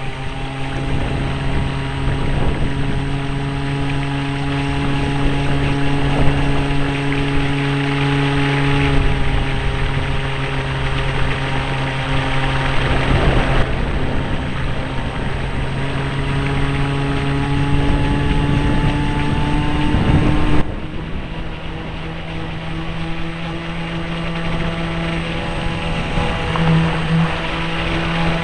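The brushless electric motor of a Graupner Ti Amo radio-controlled model boat running at speed, heard from on board: a steady whine over the rush and spray of water along the hull. The pitch and level of the whine change abruptly a few times, and it drops quieter about two-thirds of the way through.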